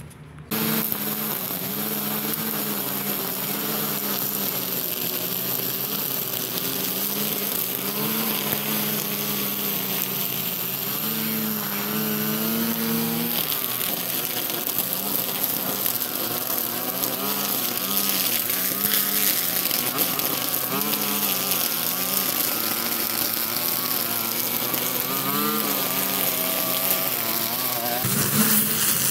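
String trimmer running as it cuts overgrown weeds, a steady buzz whose pitch wavers up and down.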